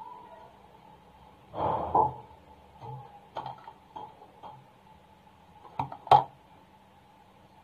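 Handling noises from craft materials being worked by hand: a short rustling noise about one and a half seconds in, a few light clicks, and a sharp knock about six seconds in, the loudest sound, over a faint steady hum.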